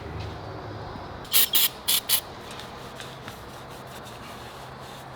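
Four short crackling bursts of a welding arc, each a fraction of a second, as a frame joint on a hardtail chopper is welded, over a low steady hum.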